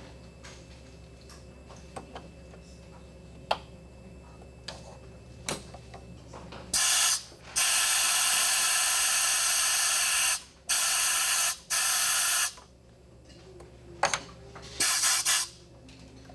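Scuba regulator second stage being purge-tested: the purge valve, pressed by hand, releases air in loud hissing blasts. A short blast comes first, then a long one of about three seconds, two shorter ones and a few brief puffs near the end. A few faint clicks come before the blasts.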